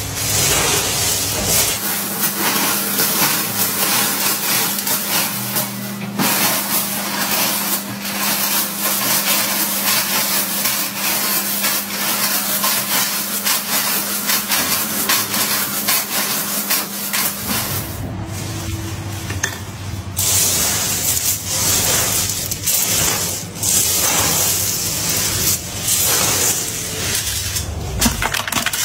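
Pieces of ridged candy rope crackling and clattering on a steel table as they are broken apart and pushed around by hand: a dense run of small clicks and rustling. A low steady hum comes in about two seconds in and stops a little past halfway.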